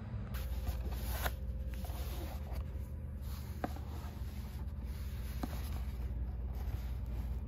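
Steady low rumble of an overnight sleeper train heard inside the compartment, with rubbing and a few sharp clicks from handling close to the microphone.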